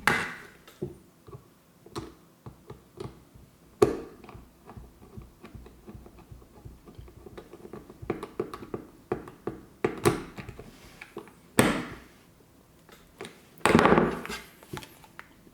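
Small clicks, taps and knocks from a plastic electrical plug, its wires and a screwdriver being handled while the plug is wired, with a few sharper clicks and a louder rustle near the end.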